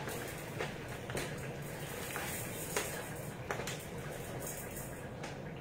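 A few faint, light clicks and knocks over a steady low hum.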